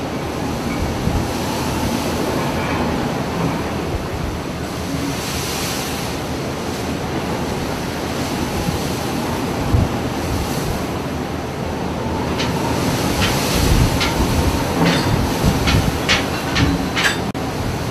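Steady mechanical rumble of a vehicle ferry's engine running at the bank, with a quick series of sharp knocks in the last few seconds.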